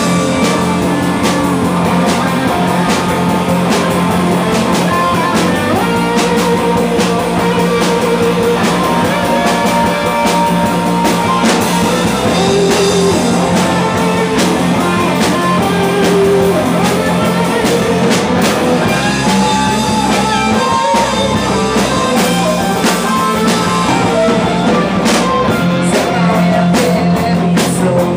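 Rock band playing live: electric guitars, bass guitar and drum kit, loud and continuous.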